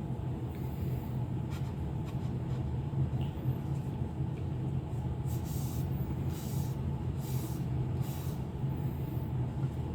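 A steady low background hum, with a few soft hissing rubs in the second half: a finger rubbing honing oil around on an Arkansas sharpening stone to lift the metal particles out of it.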